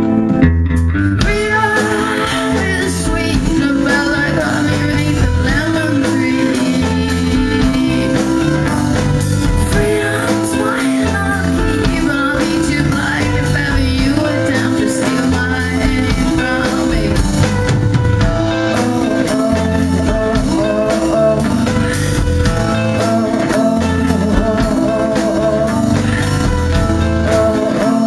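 Live indie rock band: a woman singing over strummed acoustic guitar, electric guitar, bass guitar and drums. The full band with a steady drum beat comes in loud just after the start.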